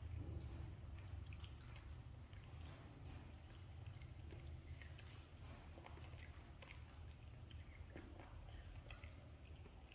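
Baby macaque nibbling kernels off a corn cob and chewing: faint, scattered wet clicks over a steady low hum.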